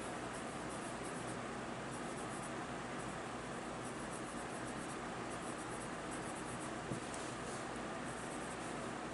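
Prismacolor colored pencil scratching across paper in short repeated shading strokes over a steady background hiss, with one light tick about seven seconds in.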